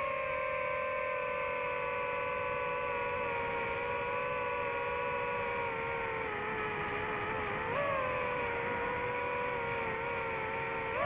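Multirotor drone's motors and propellers whining steadily. The pitch slides slowly down, then jumps up briefly about eight seconds in and again at the very end as the motors change speed.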